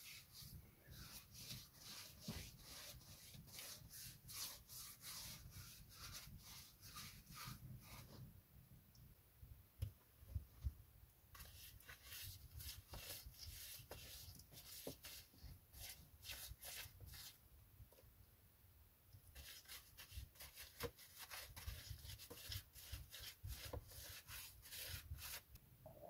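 Faint quick strokes of a brush rubbing lime whitewash onto a surface, in three runs of scrubbing with short pauses between.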